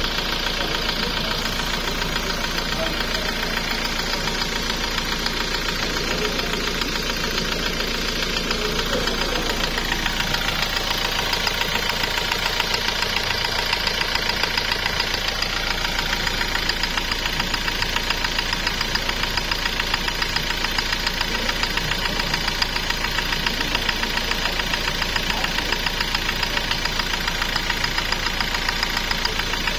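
Toyota 1GD four-cylinder turbo-diesel engine running at idle with a steady, fast, even diesel clatter.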